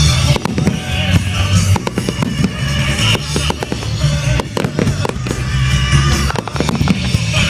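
Fireworks going off in many rapid bangs and crackles, heard over loud music.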